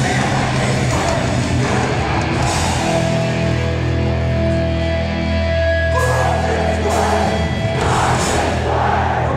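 Hardcore punk band playing live with distorted guitars, bass and drums. About three seconds in the music settles into a held, ringing chord, with yelled vocals over it in the second half.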